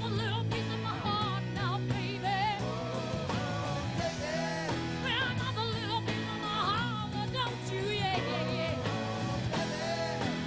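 Live band performing a song: a woman sings lead with a wavering vibrato over strummed acoustic guitar and a full band of drums, electric guitar, bass and keyboard.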